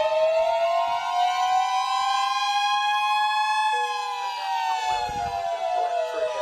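Weather radio alert tones sounding together. A siren-like electronic tone climbs slowly in pitch, then falls away from a little past halfway, over a steady tone near 1 kHz like the NOAA 1050 Hz warning alarm tone. A second, lower steady tone joins about halfway through.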